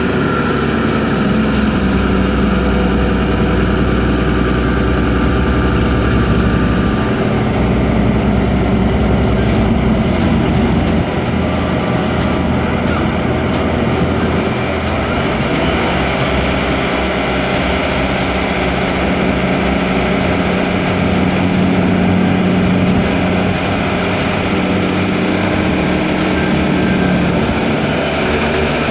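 Diesel engine of a Kato rough-terrain crane running steadily while it lowers its hook. The low rumble shifts about a third of the way through, and a steady hum holds for much of the second half.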